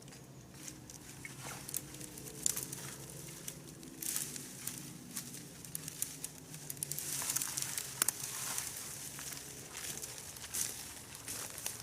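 Irregular rustling and crackling of dry fallen leaves and twigs, with a faint low hum underneath.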